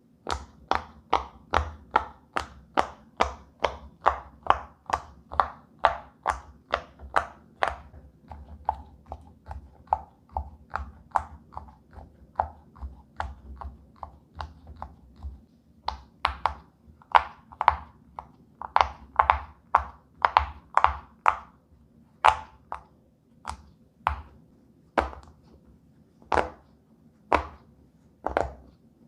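Silicone pop-it fidget toy bubbles being pressed one after another, each giving a short soft pop. The pops come about two to three a second at first, then more unevenly and further apart in the second half.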